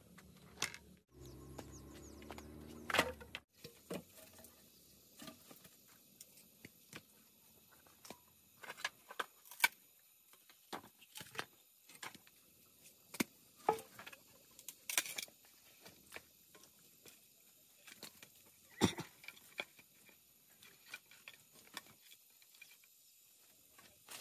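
Scattered light knocks, taps and rustles of sticks and bamboo pieces being handled and set down on a dirt floor, with a few sharper knocks spread through.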